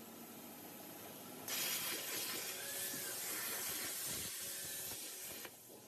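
Cutting torch hissing as it cuts through steel sheet. The hiss starts suddenly and loud about a second and a half in, after a fainter hiss, and drops away shortly before the end.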